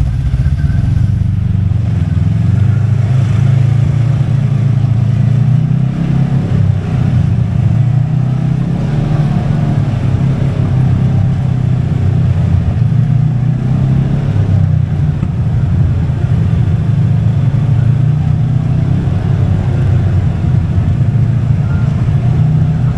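Kawasaki side-by-side UTV engine running steadily at modest revs, rising and falling a little in pitch.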